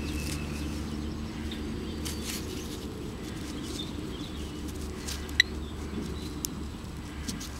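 Soft rustling and crumbling of soil and grass roots being broken apart by hand and probed with a handheld metal-detecting pinpointer, over a steady low hum. The pinpointer gives one short high beep about five and a half seconds in, the sign that it is picking up the metal target in the loose soil.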